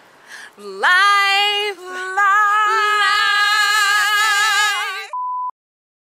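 Women singing a long, held, wavering note on the word "life", the pitch sliding up into it about a second in. It cuts off suddenly at about five seconds into a short steady beep.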